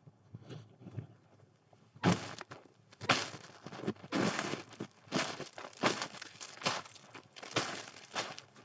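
Footsteps crunching in snow: near quiet at first, then steady walking at about two steps a second from about two seconds in.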